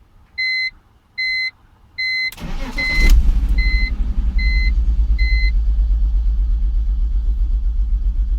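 BMW 330Ci's 3.0-litre straight-six cranked and catching about two and a half seconds in, then idling with an uneven, wavering level: a rough idle that the owner suspects comes from a vacuum leak. A dashboard warning chime beeps about every three-quarters of a second until about five and a half seconds in.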